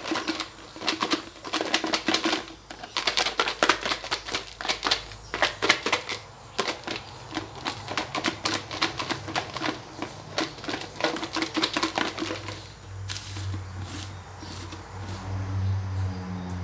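Fried chicken pieces rattling inside a lidded plastic tub as it is shaken hard to coat them in dry tom yum seasoning powder. A fast, continuous clatter for about twelve seconds, then a few scattered knocks as the shaking stops.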